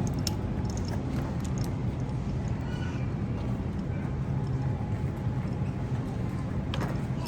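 Supermarket ambience: a steady low hum with faint background voices and a few light clicks and clatters, with one sharper click near the end.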